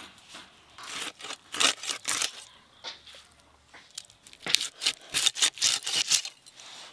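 Katla fish being cut against a bonti's curved iron blade: a run of short scraping, tearing sounds of blade through flesh and bone, coming thicker and faster in the second half.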